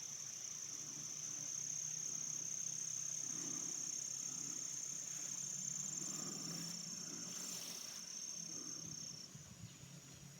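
Insects calling outdoors in a steady, unbroken high-pitched trill that fades out near the end.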